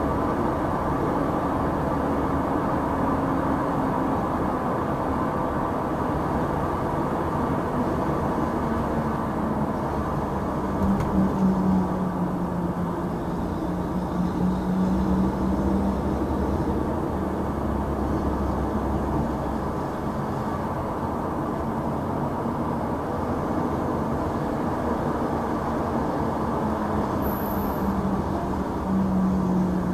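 Supercharged 3.8-litre V6 of a top-swapped Buick Regal with an Eaton M90 blower, heard from inside the cabin while driving, over steady road noise. The engine note drifts up and down with the throttle, growing louder about eleven seconds in, again a few seconds later, and near the end.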